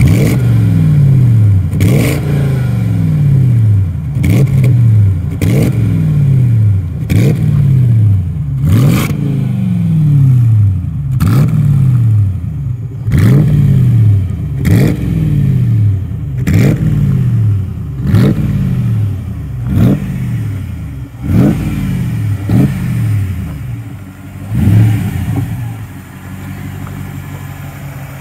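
Jaguar XKR Black Cat's supercharged 4.2-litre V8 exhaust as the parked car is revved over and over. Each blip rises quickly and falls back slowly, about every second and a half, and the engine settles to idle near the end.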